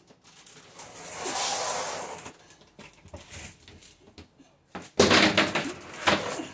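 Kitchen handling noises. There is a short scraping rush about a second in, then a loud bang with clatter about five seconds in, and another knock a second after it.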